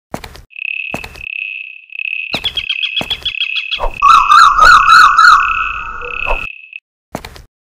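A high beep at one pitch, repeated in short pulses and broken by sharp clicks, with a loud warbling chirp about four seconds in that lasts about two seconds.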